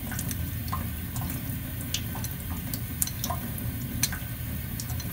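Tap water running steadily onto a hand-held natural honing stone over a steel sink, while a straight razor is honed on the wet stone under the stream, giving a few light irregular clicks.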